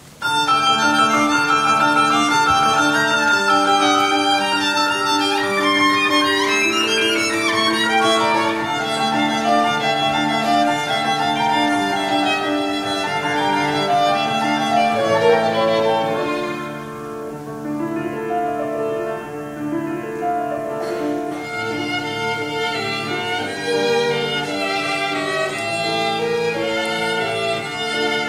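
Two violins and a grand piano playing together. The music comes in suddenly right at the start and softens a little past the middle.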